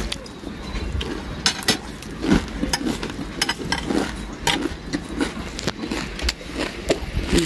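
Irregular clicks and scrapes of a metal spoon against a plate of puffed rice mixed with sev while someone eats.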